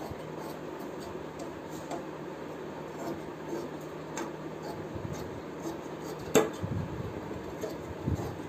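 Large tailor's shears cutting through fabric, the blades snipping and clicking with each cut, one sharp metallic click about six seconds in.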